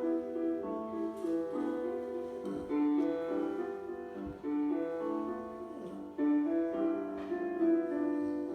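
Piano music: a gentle melody of single notes over soft chords, playing steadily.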